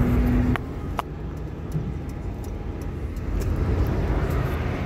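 Car cabin noise while driving: a steady low rumble of engine and tyres on the road. Two sharp clicks come about half a second and a second in.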